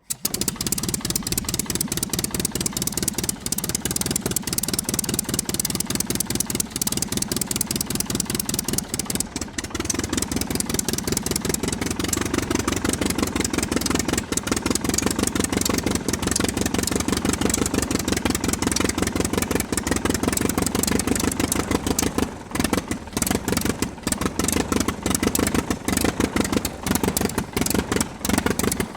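Aircraft engine running steadily with a fast, even pulsing, getting a little louder about ten seconds in.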